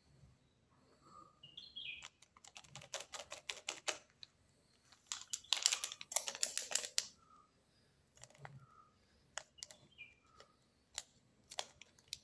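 Crinkly plastic wrapper of a Cadbury Gems candy pouch crackling as it is picked up and handled, in two dense bursts about two and five seconds in, then a few scattered single crackles.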